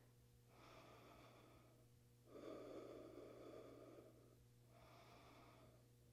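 Faint, slow breathing: four soft breaths, each a second or two long, alternating fainter and stronger, over a low steady room hum.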